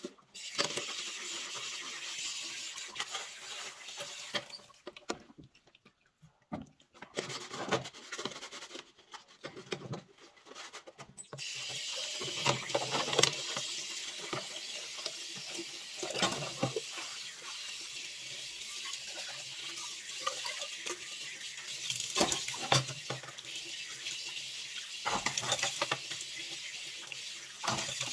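Tap water running into a sink while pots and dishes are washed by hand, with scattered knocks and clatter of cookware against the basin. The water stops for a couple of seconds about five seconds in, comes and goes, then runs steadily from about eleven seconds in.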